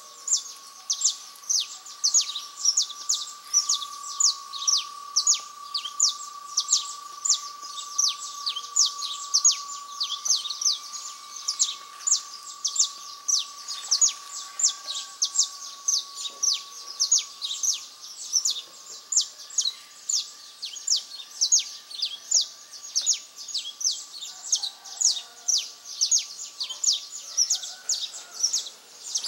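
A bird chirping over and over at dawn, a sharp down-slurred chirp repeated evenly about two to three times a second. Underneath runs a steady faint high hum that fades out near the end.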